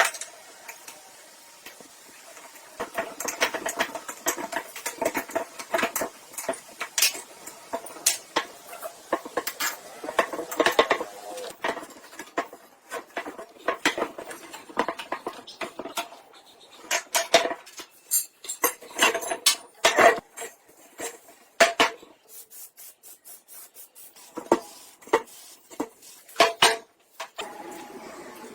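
Metal tools and parts clinking, tapping and scraping against each other in irregular clusters, many knocks ringing briefly.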